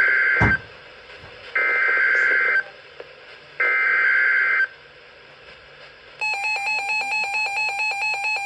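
Emergency Alert System SAME header: three bursts of screeching digital data tones, each about a second long and a second apart. About six seconds in a loud, rapidly pulsing alert tone starts and holds steady, signalling the start of a new warning.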